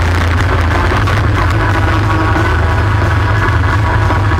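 All-terrain vehicle engine running steadily at cruising speed along a dirt trail, a constant low drone that does not rise or fall.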